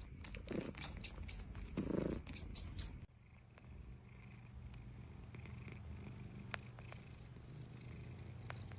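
A domestic cat purring softly and steadily. The purr is clearest after a short stretch of faint clicks and two low bursts in the first few seconds.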